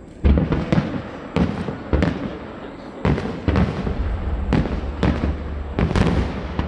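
Aerial fireworks going off in rapid succession, a dozen or so sharp bangs about every half second, each trailing off in a rumbling echo.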